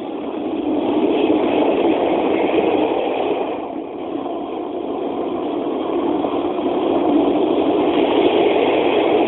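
Steam locomotive running: a steady rushing roar with no distinct beats, easing briefly about four seconds in.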